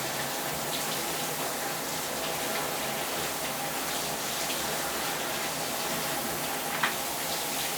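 Locker room shower running: a steady hiss of spraying water, with one short sharp clack near the end.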